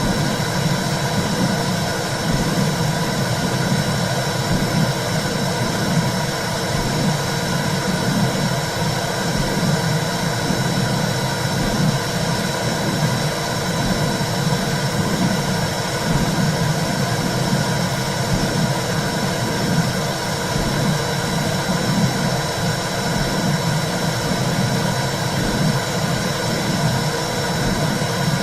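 Womb sound for soothing a baby: a steady low whooshing rumble that swells in a slow, regular pulse, like a heartbeat heard through fluid.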